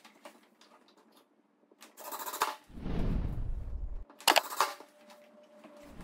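Makita cordless impact driver, backed down to a slow speed, running for just over a second about three seconds in as it drives a screw through a blind mounting bracket into wooden window trim. Sharp clicks and clatter come just before and after it.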